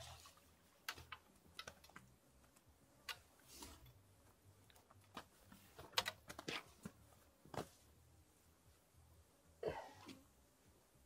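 Faint, irregular clicks and taps, with a short rustling noise near the end.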